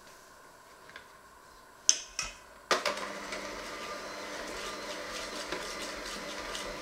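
Two sharp knocks, then an electric hand mixer switches on a little under three seconds in and runs steadily, its beaters turning in a stainless steel bowl of flour.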